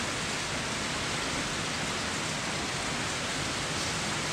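Steady, even rushing of water, unchanging throughout.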